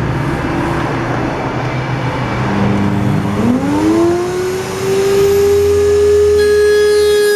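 A power tool's electric motor running, then spinning up: about three seconds in its hum rises in pitch and settles into a steady high whine.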